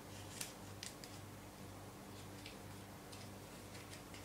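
Quiet room with a steady low hum and a few faint, scattered clicks and ticks.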